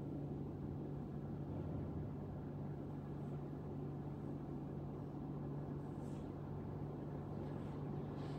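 Room tone: a steady low hum over a dull rushing noise, with a couple of faint soft rustles in the last few seconds.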